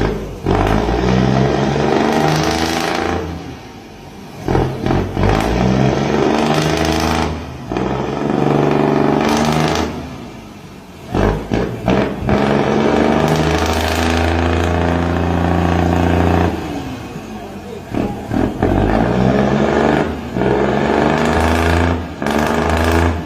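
Deep, loud boat horns blaring in long blasts of a few seconds each, starting and cutting off sharply, the pitch stepping down within some blasts.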